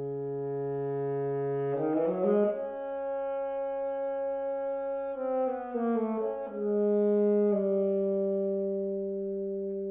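Solo saxophone playing a slow melody of long held notes, joined by a quick rising run about two seconds in and a falling run around six seconds, then settling on a long low note.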